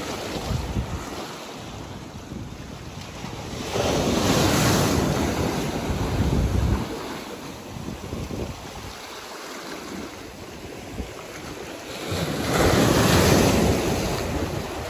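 Ocean surf breaking and washing up the shore, swelling loud twice, with wind buffeting the microphone.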